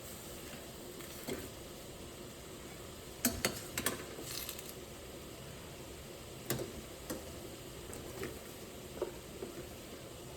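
Onions frying in a pan with a steady, faint sizzle, broken by a few sharp clicks and taps of a utensil stirring them.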